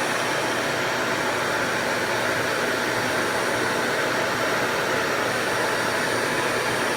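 RevAir reverse-air hair dryer running steadily, its motor pulling air and hair up into the wand with a constant rush of air and a thin high whine.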